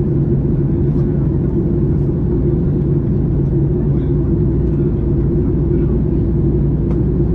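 Steady low drone of a jet airliner's engines and airflow heard inside the passenger cabin, with a constant low hum in it.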